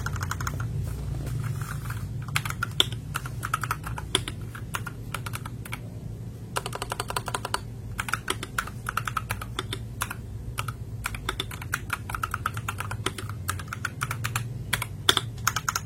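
Typing on a mechanical keyboard fitted with PBT Cherry-profile keycaps: fast, irregular key clicks, testing the newly fitted keycaps.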